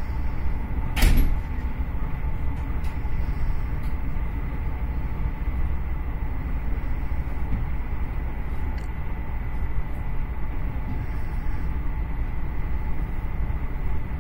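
Intercity passenger train running along the track, heard from inside the carriage as a steady low rumble. A brief loud whoosh comes about a second in.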